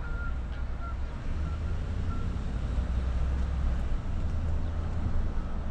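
Low, steady outdoor rumble, with a few short high chirps in the first two seconds.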